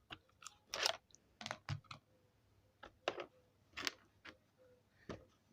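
Scattered light clicks and rustles of a Beyblade spinning top and its parts being handled, about a dozen short separate sounds.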